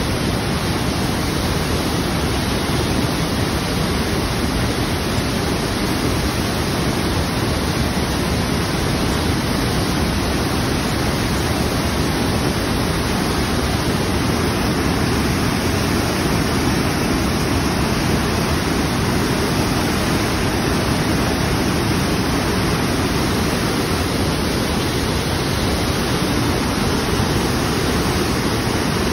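Muddy, rain-swollen river in flood pouring over a wide waterfall into churning white water: a loud, steady rush of falling water.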